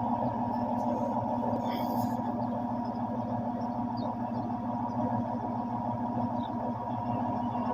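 Engine of heavy construction machinery running steadily at a constant speed, with a short hiss about two seconds in.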